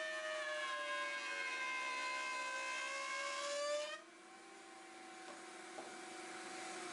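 Table-mounted router spinning a 3/4-inch bit through MDF to cut a rabbet, its whine pulled slightly lower under the load of the cut. About four seconds in, the cut ends and the motor speeds back up to a higher, quieter free-running whine.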